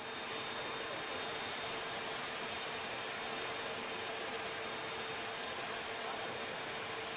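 Steady machine noise, an even rush with several constant high whining tones, unchanging throughout.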